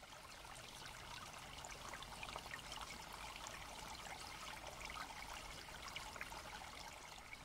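Faint mountain-river water running and babbling over rocks in a gorge, fading in at the start and holding steady.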